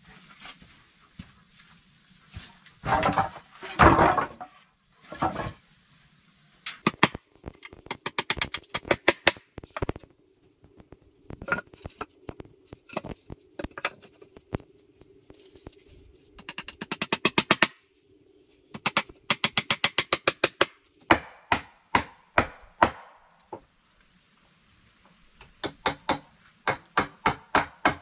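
Split logs and wooden poles dropped and clattering onto the floor a few seconds in, followed by long runs of sharp wooden knocks as logs are set and struck into place, some in quick regular strings of taps.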